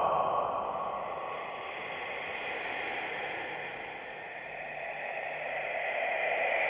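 Eerie whispered breathing, a slow airy breath with no voiced words. It fades away over the first few seconds, then swells again near the end.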